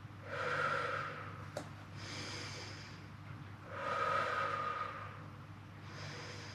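A woman breathing audibly in a paced exercise rhythm, inhaling and exhaling in turn, four breaths of about a second each, with a faint click about one and a half seconds in.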